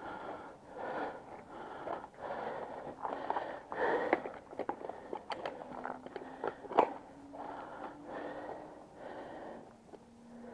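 Heavy, rapid breathing close to the microphone, one breath roughly every second, with a few sharp clicks in the middle, the loudest about seven seconds in.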